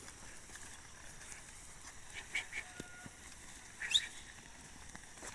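A few faint, short bird chirps, then one brief high call that sweeps up and down about four seconds in, over quiet outdoor background.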